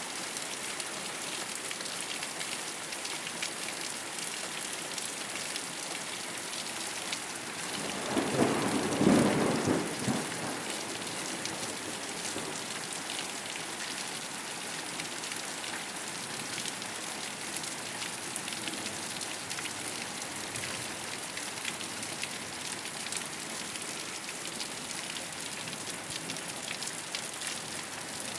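Steady rain falling on a rooftop. About eight seconds in, a short roll of thunder swells up over the rain for about two seconds and fades.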